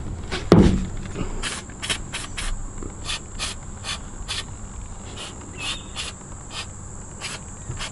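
Steady high-pitched insect chirring, with a heavy thump about half a second in and irregular sharp clicks and knocks after it.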